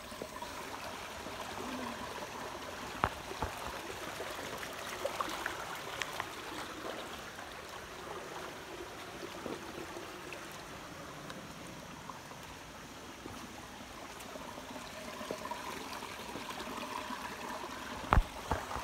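Shallow rocky stream running and trickling over stones, with a few sharp knocks: around 3 and 6 seconds in, and a louder pair near the end.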